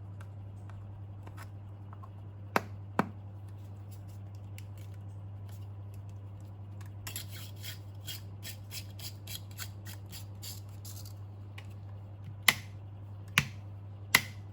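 Hand work with small tools: a few sharp clicks, two near the start and three near the end, and in the middle a run of quick light strokes, about three a second for four seconds, over a steady low hum.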